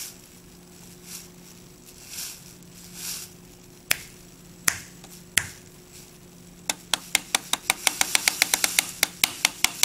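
A few soft rushes of noise, then three sharp hand claps about four to five and a half seconds in, followed from about seven seconds by a rapid run of claps, some five a second. The claps are loud enough for the laptop microphone to drive a Lego WeDo motor fan faster.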